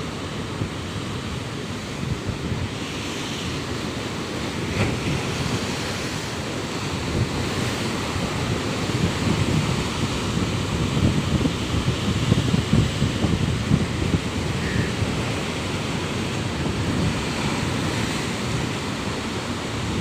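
Rough sea waves breaking and splashing against flat rock ledges: a continuous rushing surf that swells loudest around the middle, with wind noise on the microphone.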